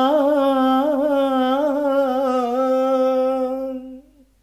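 A man sings a wordless 'aah' unaccompanied. The held note wavers through quick ornamental turns, then steadies and stops about four seconds in.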